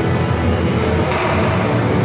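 Music playing, with held notes over a dense, steady mix.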